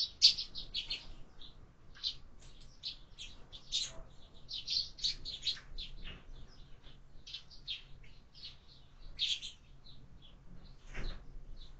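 Eurasian tree sparrows chirping: a rapid, irregular run of short, high chirps that thins out near the end, with a single soft knock shortly before it ends.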